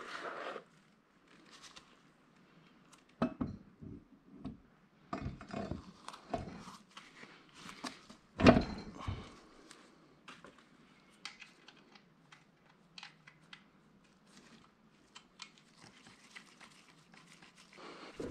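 Metal parts of an NP435 manual transmission being handled on a workbench as the tail housing is fitted to the gearbox case: scattered clunks and clinks, with one heavy clunk about eight seconds in, then light ticks.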